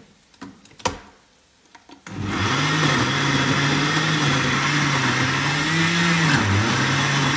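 A few clicks and knocks as the blender lid is handled, then about two seconds in a countertop blender starts and runs steadily at high speed, pureeing chopped tomatoes, red peppers and onion with a little water. Its motor pitch wavers and dips briefly near the end.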